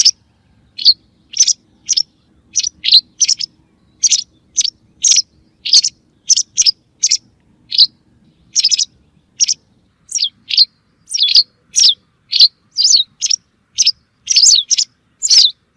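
Recorded calls of the bird known in Arabic as al-za'ra al-bayda, played as a hunting lure: short, sharp high chirps repeated about twice a second in a steady series.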